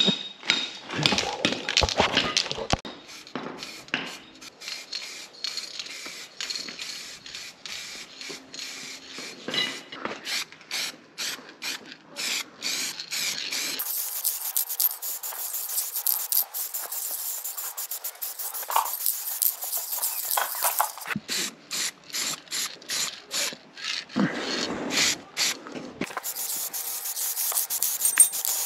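Aerosol spray paint can: quick rattling strokes as the can is shaken, then a steady hiss of spraying for several seconds about halfway through, more shaking, and spraying again near the end.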